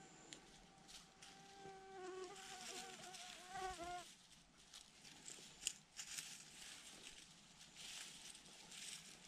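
Faint buzz of a flying insect for about four seconds, its pitch wavering before it stops. After it come soft scattered rustles and clicks of string being handled in dry grass.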